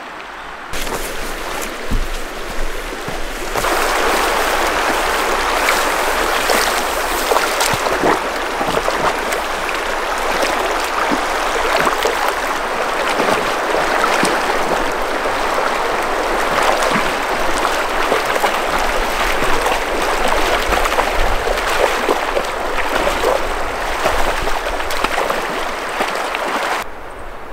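Shallow mountain river rushing over rocks, loud and close, with the splashing of a dog and a hiker wading through it. The water sound grows louder a few seconds in and stays steady until it drops off near the end.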